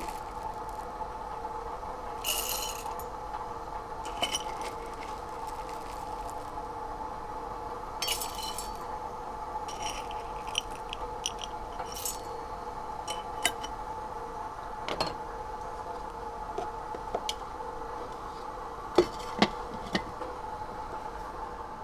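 Kitchenware clinking and scraping: scattered light clinks of glass, cups and utensils, then two sharp knocks near the end, over a steady hum.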